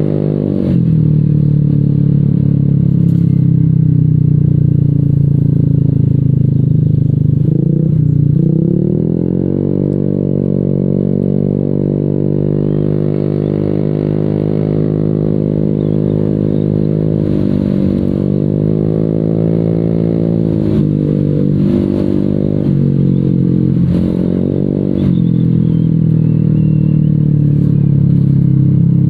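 Honda Vario 150 scooter's single-cylinder engine through a Proliner aftermarket exhaust, heard while riding: a steady, deep exhaust note. Engine speed drops and climbs again about eight seconds in, and rises and falls a few more times later with the throttle.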